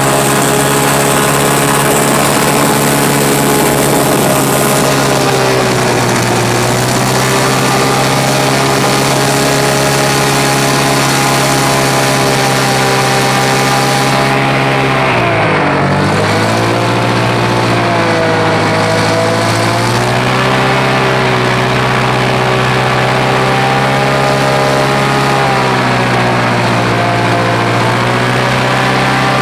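Airboat engine and propeller running loud and steady while under way across marsh grass. The engine drops in pitch about halfway through, then comes back up, with a smaller dip near the end.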